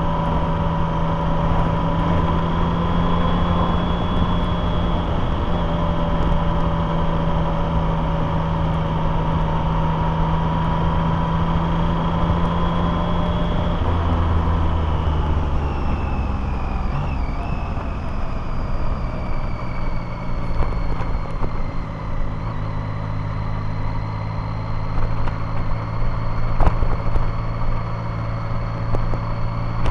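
Motorcycle engine running steadily under way, with road and wind noise. About halfway through, the engine note drops and settles at a lower, steady pitch.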